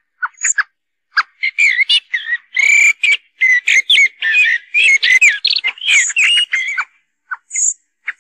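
Common blackbird calls and song from a hunting lure recording: a few short, sharp call notes, then a dense run of warbling and chattering phrases with high squeaky notes from about a second in to near the end, and a few more sharp calls at the very end.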